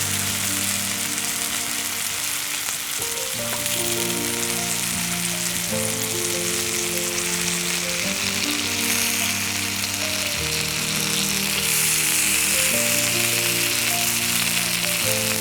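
Food sizzling steadily in a hot frying pan, under background music of held chords that change every second or two.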